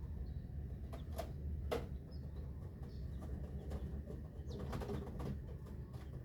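Newly hatched chicks peeping in short, scattered calls over a steady low hum.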